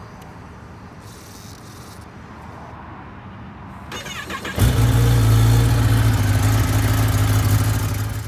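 Kawasaki Ninja ZX-10R inline-four engine being started: a brief crank about four seconds in, then the engine catches and settles into a steady, loud idle.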